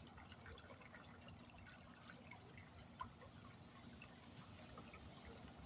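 Faint trickling and scattered drips of water at a clogged curb storm-drain grate as a hand works in the shallow puddle over it, with one small click about three seconds in.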